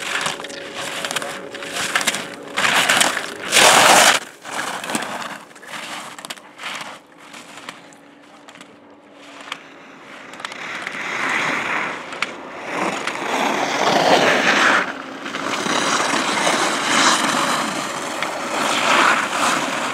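Slalom skis carving and scraping over hard-packed snow, swelling and fading with each turn in the second half. In the first five seconds a run of sharp knocks, the loudest about four seconds in, fits slalom gate poles being struck as the skier clears them.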